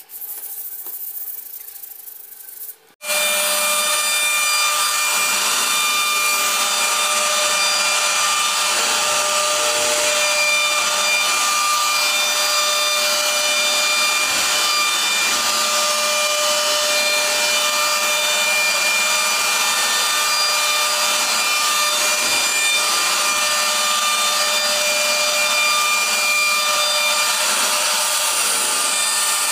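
A machine motor running steadily with a constant whine over a loud, even hiss, starting abruptly about three seconds in after a quieter hiss.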